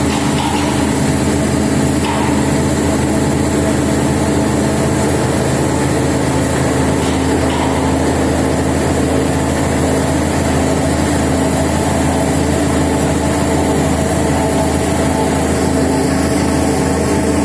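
An external pin milling machine with a 750 mm cutter running: a steady, even machine drone with several held hums and hiss, unchanging throughout.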